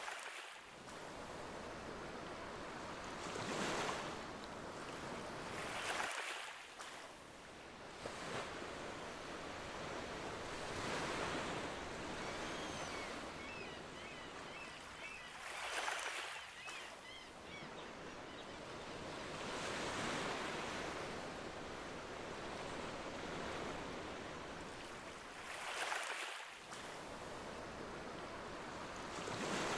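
Ocean waves washing onto a shore, the surf swelling and drawing back every few seconds. A few faint high chirps come through about halfway.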